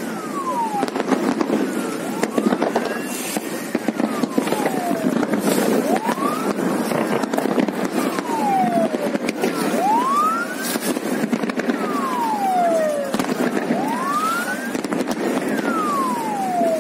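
A siren wailing, its pitch sweeping up and down again every two to three seconds, over the steady noise of a boat moving on the water, with scattered crackles.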